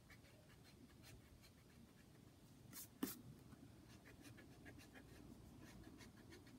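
Pencil sketching on sketchbook paper: faint, quick scratchy strokes, with two sharper taps about three seconds in.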